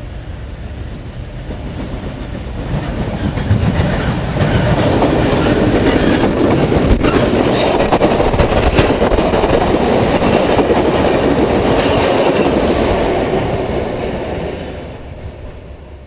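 Track recording train, a locomotive and its carriages, approaching and passing close by. A rumble builds over the first few seconds, then steel wheels click over the rail joints while the carriages go past, and the sound fades away near the end.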